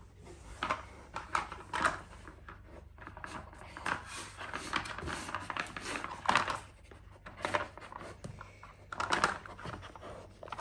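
Hard plastic dog treat puzzle with stacked bone-shaped layers being pushed about by a malamute's nose: irregular clacks, clicks and scrapes of plastic on plastic and on the floor as the dog works the layers to get at the treats.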